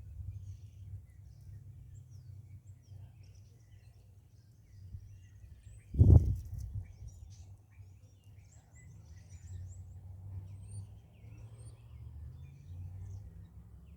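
Outdoor ambience of faint, scattered bird chirps over a steady low rumble, with one sudden loud low thump about six seconds in.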